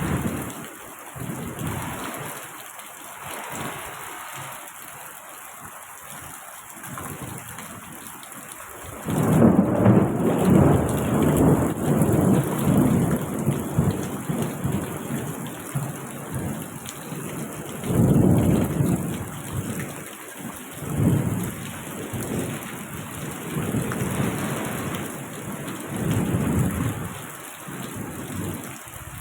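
Rain falling steadily with rolling thunder: a loud, long rumble starts about nine seconds in, followed by several shorter rumbles later on.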